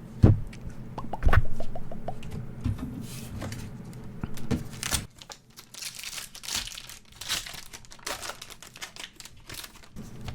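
A foil booster pack wrapper being torn open and crinkled, with a couple of sharp knocks in the first second or so as things are handled on the table.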